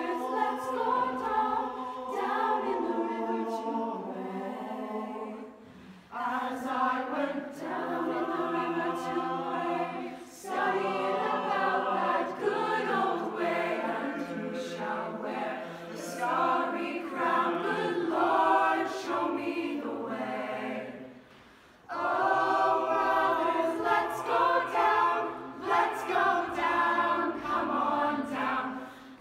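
Mixed high school show choir singing unaccompanied in harmony, in long phrases with three short breaks between them.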